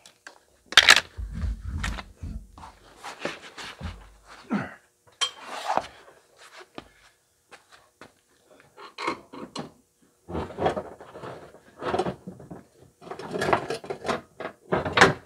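Irregular knocks, clicks and clatter of hand tools and car body parts being handled around a car's front wheel well, with a low rumble about a second in.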